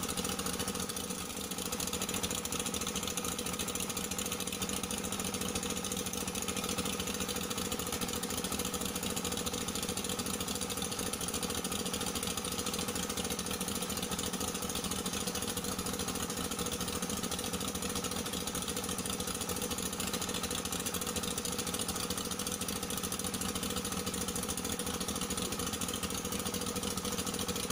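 An engine running steadily at constant speed, a continuous drone that does not change in pitch or loudness.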